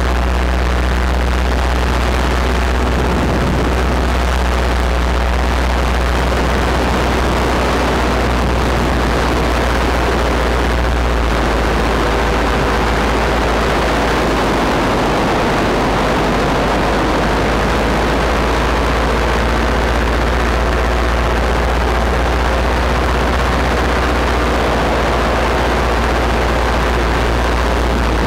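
Powered paraglider (paramotor) engine and propeller running steadily in flight, with a loud low drone and rushing wind.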